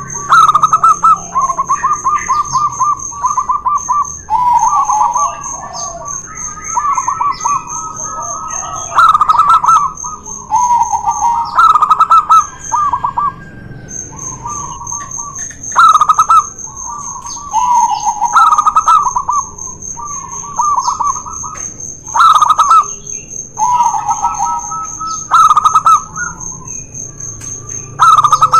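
Zebra doves (perkutut) singing their rapid, trilled cooing phrases, two birds at slightly different pitches answering and overlapping, a loud phrase every few seconds. A steady, high-pitched pulsing tone runs underneath.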